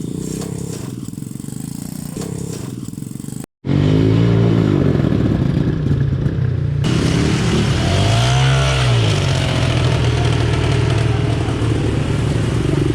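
A small vehicle engine running, muffled at first, then cut off by a moment of silence about three and a half seconds in and back louder, with one rev rising and falling in pitch near the middle.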